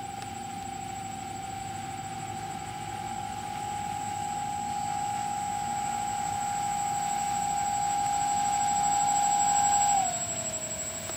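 Twin motors and propellers of a radio-controlled PBY Catalina flying-boat model taxiing on water, a steady whine that grows louder as it approaches. About ten seconds in, the pitch drops a step as the motors slow.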